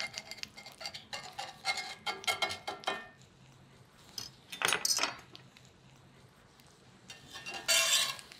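Knife cutting through a crisp Dutch baby pancake in an enameled cast iron skillet, the blade scraping and clinking against the pan in a quick run of small clicks and scrapes. A louder scrape comes about halfway, and the loudest one near the end.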